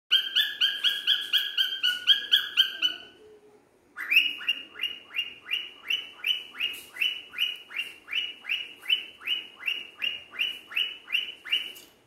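Male cockatiel calling in a fast series of short, slightly falling chirps, about three to four a second. It breaks off for about a second around three seconds in, then goes on with a steady run of chirps.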